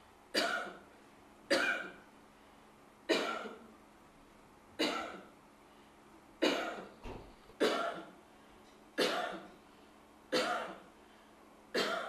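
A person coughing: nine single coughs, evenly spaced about every second and a half, each sharp at the start and quickly fading. The coughs are recorded for an AI app that screens for tuberculosis from cough sounds.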